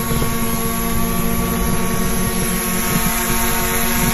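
Multirotor drone's propellers and motors buzzing steadily in flight, heard close up from its own onboard microphone: a constant whine of several tones at a steady pitch over a rough, fluttering low rumble.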